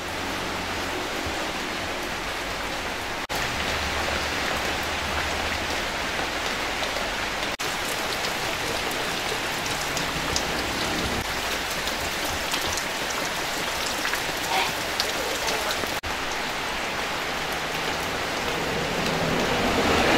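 Steady rain falling, an even hiss that breaks off for an instant three times.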